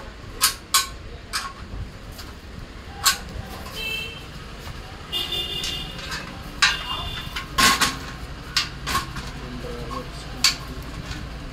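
Sharp metal clanks and knocks, about ten spread irregularly, as a steel treadle sewing-machine stand is moved and a metal part is set onto its frame, with a couple of brief ringing squeaks.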